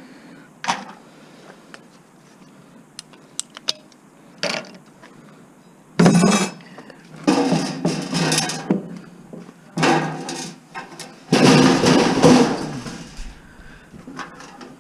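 Scrap being dismantled by hand: scattered clicks and taps of small parts and tools, then from about six seconds in four loud rough bursts of parts and wire being pulled and scraped apart.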